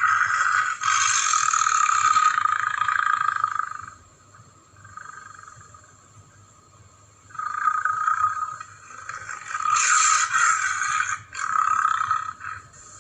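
Cryolophosaurus dinosaur sound effects: a long call of about four seconds, a brief faint one, then three shorter calls in quick succession.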